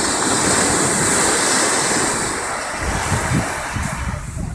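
Surf: a small wave breaking at the shoreline and washing up the sand in a loud rush that swells in just before the start and eases off after about two and a half seconds. In the second half, wind gusts rumble on the microphone.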